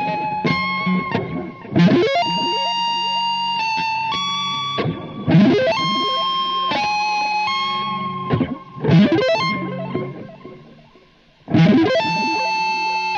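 Electric guitar through effects playing a melodic line of long held notes, broken every few seconds by quick flurries of notes. The sound dies away briefly about eleven seconds in, then comes back with a loud new note.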